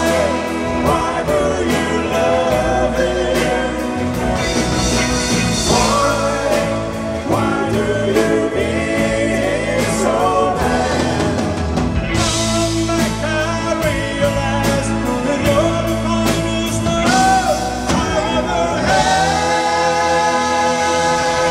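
Live pop band playing with drum kit, guitars and a lead vocal singing. Over the last two or three seconds the band holds steady sustained notes.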